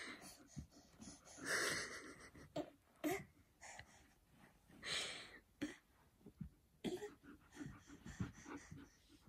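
A baby's quiet breathy huffs and a few short, soft grunts of effort as she strains to crawl on her tummy.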